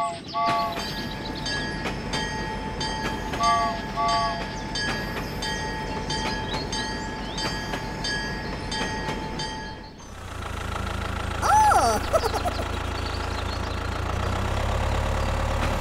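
Battery-powered toy train running on plastic track, with steady rhythmic clicking and a few short two-note electronic chimes from the locomotive. About ten seconds in, the clicking gives way to a low steady hum that grows louder toward the end.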